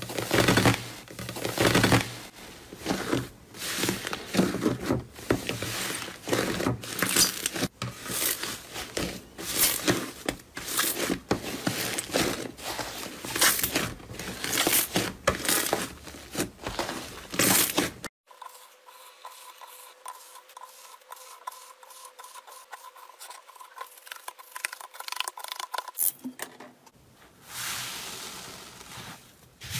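Slime being pressed and squeezed by hand, giving dense crackling and popping as air pockets burst and the slime squelches. About two-thirds of the way in it drops to a much quieter stretch with a faint steady hum, and softer squishing returns near the end.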